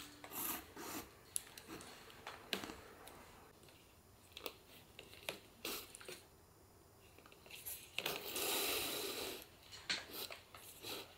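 Hand saddle-stitching leather: needles pushed through the punched stitch holes with scattered small clicks and rubs, and the long thread drawn through the leather in a longer hiss about eight seconds in.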